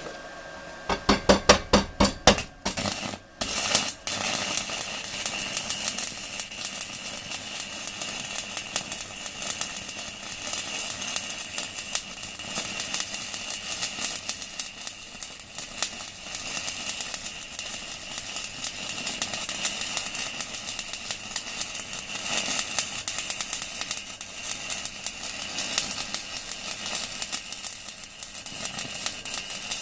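Stick-welding arc from a 4 mm UONI electrode on a welding inverter set to 160 amps. A run of sharp cracks about a second in as the arc is struck, then steady crackling for the rest.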